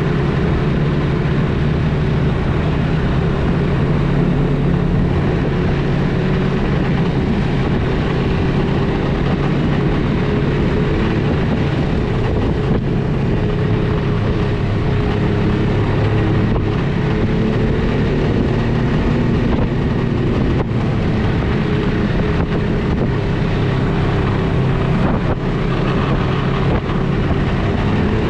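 Snowmobile engine running steadily at an even cruising speed, heard from the rider's seat.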